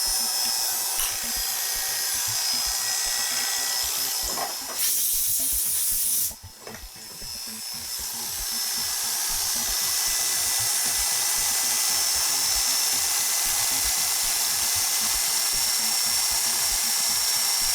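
Electric hair clipper running with a freshly sharpened blade being tested for cutting, a steady high whine. About five seconds in it gets louder and hissier for a second or so, then drops away sharply and builds back up to a steady run.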